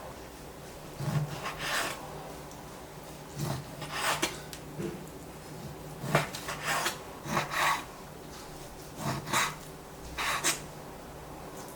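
Kitchen food preparation: short rasping, rubbing strokes in irregular groups of two or three, over a low steady hum.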